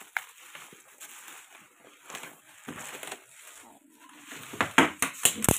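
Clear plastic wrap crinkling and rustling as a wrapped cardboard box is handled and unwrapped, with several sharp, loud clicks near the end.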